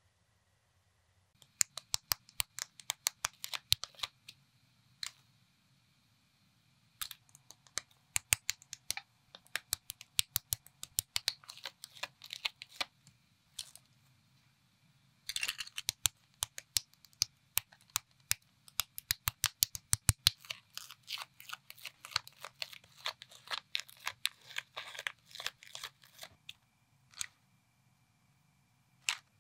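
Knockoff Lego-compatible plastic bricks being clicked and snapped together by hand: quick runs of sharp clicks broken by a few short pauses.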